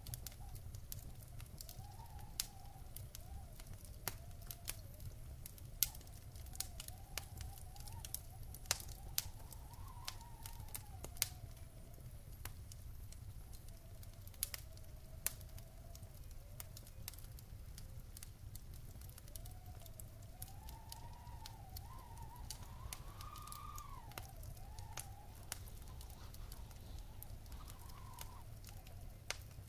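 Wood fire crackling in a fireplace: irregular sharp pops and snaps over a low steady rumble. A faint wavering whistle drifts up and down underneath.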